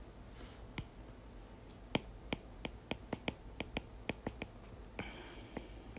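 Light clicks and taps of a stylus on a hard tablet surface while handwriting. A single click comes near the start, then a quick run of about five a second through the middle, thinning out toward the end.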